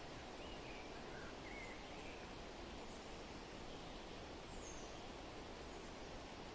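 Steady wind, with a few faint bird chirps between about half a second and two seconds in and another about four and a half seconds in.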